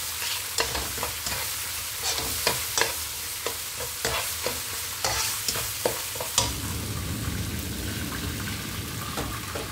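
Plastic spatula stirring and scraping a thick red chili spice paste in a nonstick wok, about two strokes a second, over a steady sizzle of frying. The stirring stops about six seconds in and the sizzle goes on alone.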